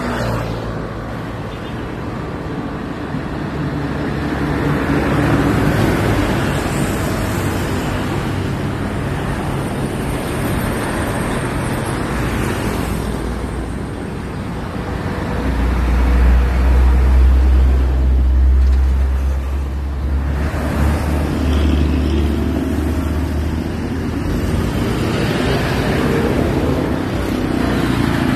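Road traffic passing a bus stop: trucks, cars and motorcycles going by. A Mitsubishi city bus pulls in close, and its diesel engine idles with a deep steady hum for about eight seconds just past halfway. Near the end more motorcycles and another bus pass.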